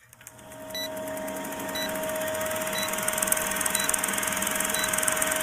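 Old film-projector countdown sound effect: a steady whirring rattle with a constant hum, fading in over the first second, and a short high blip about once a second.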